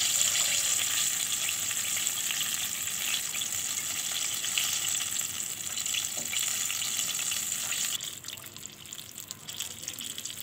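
Flour-coated chicken pieces sizzling and crackling in hot oil in a frying pan, a dense steady hiss. About eight seconds in the sizzle drops suddenly to a softer level.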